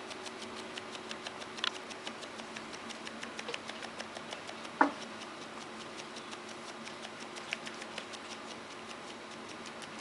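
A small dog scratching its neck with a hind paw, its collar and tag rattling in quick, fairly even ticks, with one louder knock about five seconds in. A faint steady hum runs underneath.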